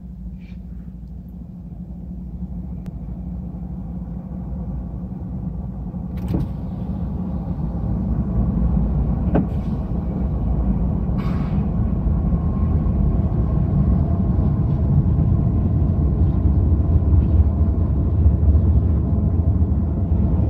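Diesel freight train approaching and passing, led by GE ET44C4, ES44C4 and Dash 9-44CW locomotives: a deep engine rumble that grows steadily louder, with a few sharp clicks along the way, turning into the rolling rumble of double-stack container cars on the rails near the end.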